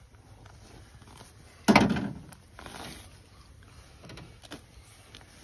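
Sandhill crane's skin and feathers being pulled back off the breast by hand, with one sudden loud rip about a second and a half in, then quieter rustling and a few small clicks.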